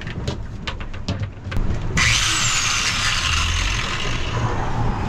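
Corded angle grinder handled with a few clicks and knocks, then switched on about two seconds in and running steadily with an even, hissing whir.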